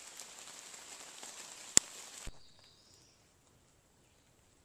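Outdoor forest ambience: a steady hiss with a sharp click just under two seconds in. It cuts off about half a second later to faint woodland quiet, with a brief high chirp.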